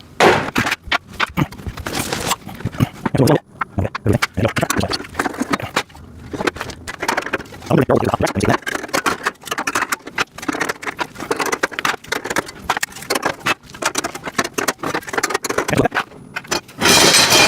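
Clicking, knocking and clinking of metal rack parts and plastic parts bins being handled and fitted during assembly, with a louder rattling clatter near the end.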